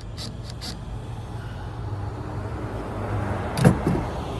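Handling sounds from fitting a welder's cover: a few light clicks early on, then scraping that grows louder and a sharp knock about three and a half seconds in, over a steady low hum.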